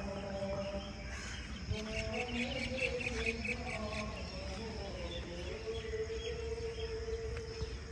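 Slow, faint melody of long held notes that slide and step between pitches, with quick chirps a couple of seconds in over a low steady rumble.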